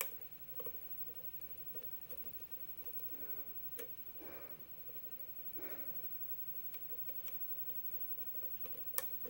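Lock pick working the pins of a CASSA half euro cylinder under a tension wrench: faint scattered ticks and light scraping of metal on metal, with a sharper click about nine seconds in.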